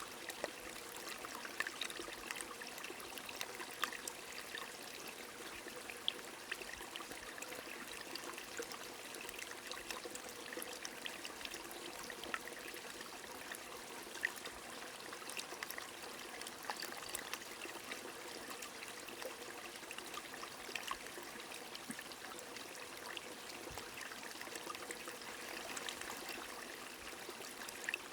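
Rain falling with a flowing stream: a steady rush of running water, with scattered small drop ticks throughout.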